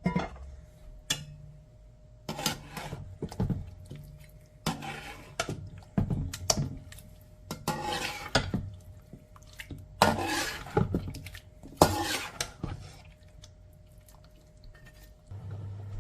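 Kitchen utensils clinking and scraping against dishes in a series of short, irregular bursts with sharp clicks. A steady low hum starts near the end.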